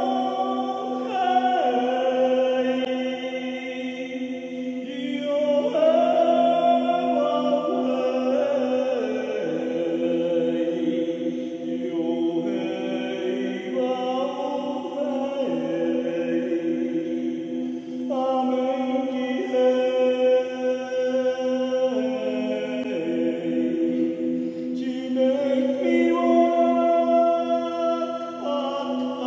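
Layered chanting voices, choir-like, holding long notes that change every couple of seconds. Under them a crystal singing bowl keeps up one steady, slowly pulsing drone.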